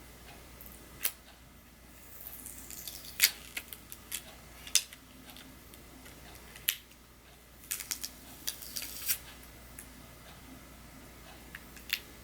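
Scattered small, sharp clicks and taps from handling an iPhone 6s Plus and its parts by hand, coming irregularly and bunched together around the middle.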